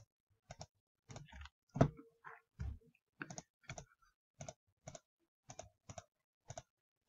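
Irregular clicking of a computer mouse and keyboard, about two or three sharp clicks a second.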